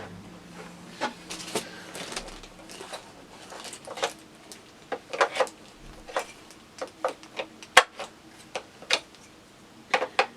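Irregular clicks and knocks as a TV stand is handled and tried against the base of a 22-inch LED TV.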